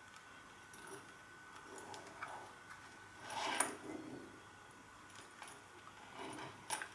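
Quiet handling of a small plastic electronics box with wires attached: light rubbing and small clicks as it is turned in the hands, a louder scrape about halfway through and a sharp click near the end.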